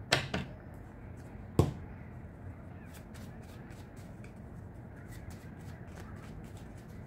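A deck of tarot cards handled and shuffled by hand: two sharp taps about a second and a half apart near the start, then a run of faint, quick card flicks.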